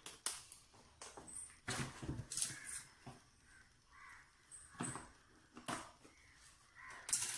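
Cardboard box being handled and its tape seal cut open with a small knife: short scattered scrapes, rustles and taps about a second apart, the loudest near the end.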